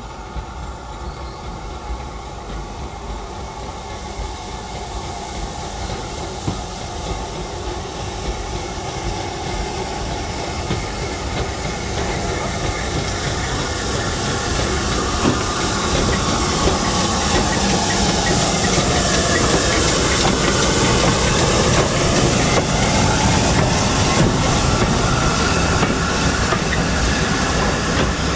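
Steam-hauled train approaching along the line, growing steadily louder for about the first two-thirds and then running close by at full loudness.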